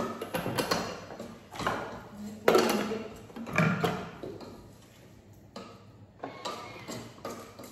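Kitchen clatter: a Thermomix's stainless mixing bowl being set into its base and the lid put on, with a wooden spoon stirring in a steel pot. Several separate knocks, some ringing briefly.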